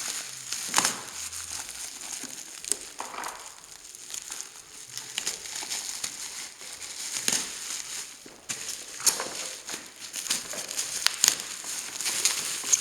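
Plastic packaging wrap crinkling and crackling as it is pulled and torn off a boxed tool, in irregular rustles with sharp crackles, pausing briefly about eight seconds in.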